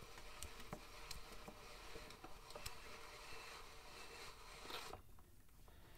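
Faint ticks and light scraping of a hex socket on an extension, turned by hand to screw a motorcycle front axle into its threads.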